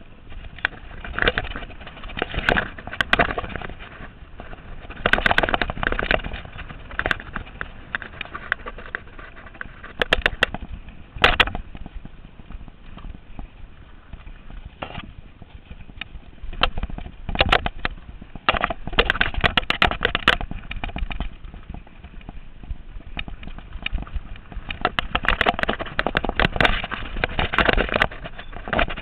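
Mountain bike clattering and rattling over a rough dirt trail: a steady rumble of tyres on the ground, broken by clusters of sharp knocks as the bike hits bumps.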